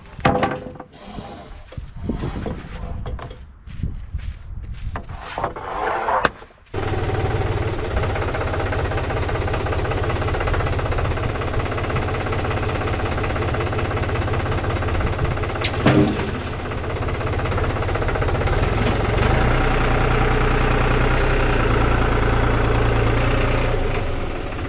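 Wood-Mizer LT40 portable bandsaw mill running steadily, starting abruptly after a few seconds of knocks and handling noises, with one sharp knock partway through.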